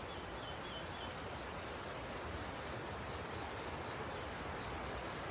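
Insects singing in a steady, unbroken high-pitched drone over a constant rushing noise, with a few faint short chirps in the first second.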